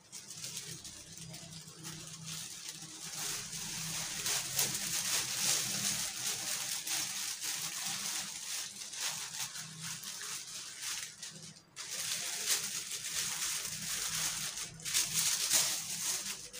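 Thin plastic bag crinkling and rustling as hands slide a stack of paper-layered parathas into it and smooth it, with two short breaks about 12 and 15 seconds in.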